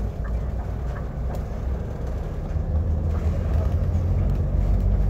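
Bus engine and road noise heard from inside the cabin: a steady low rumble that grows louder about halfway through as the bus pulls harder, with a few light rattles.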